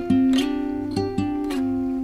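Acoustic guitar music: chords strummed in a steady rhythm, with no singing.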